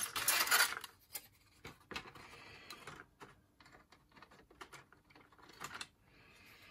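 Grey plastic model-kit sprues and parts rustling and clicking against each other and the cardboard box as they are handled and lifted out. The rustle is loudest in the first second, then thins to a few scattered light clicks and taps.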